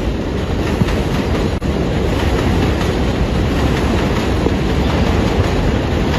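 New York City Subway 7 train running past on its elevated track: a steady, loud rumble and clatter of steel wheels on the rails.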